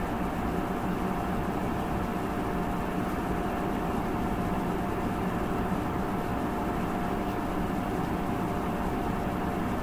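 A steady hum and hiss with one constant tone, unchanging, with no separate clicks or events.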